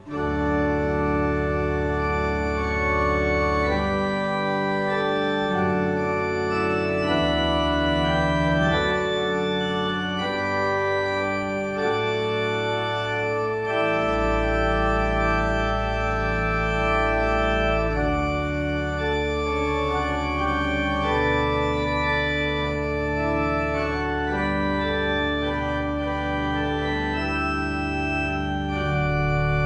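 Organ playing a slow piece of sustained chords over long-held low bass notes that change every few seconds.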